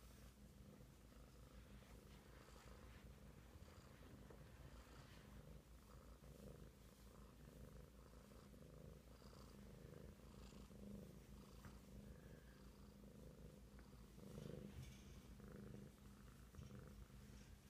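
Domestic cat purring steadily as it is stroked on the head and back.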